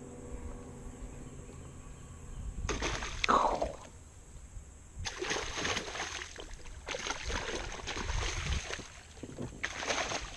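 A hooked fish thrashing and splashing at the water's surface as a landing net is worked under it, in repeated splashes starting about three seconds in and coming most often in the second half.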